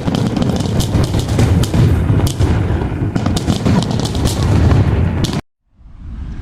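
Fireworks display: a dense, rapid run of bangs and crackles over a low booming rumble, cutting off suddenly about five seconds in.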